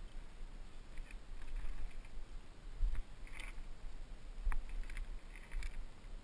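Mountain bike being handled over stacked logs: a few sharp knocks and rattles, the loudest about three and four and a half seconds in, over a steady low rumble on the helmet-camera microphone.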